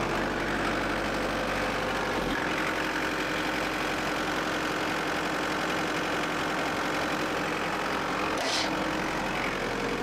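New Holland C232 compact track loader's diesel engine running steadily, its low note changing about two seconds in; a brief hiss near the end.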